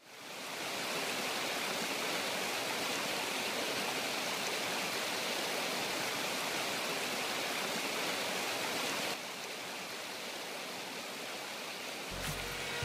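Creek water rushing over rocks in small rapids: a steady hiss of flowing water that fades in at the start and drops a little in level about nine seconds in. Music starts near the end.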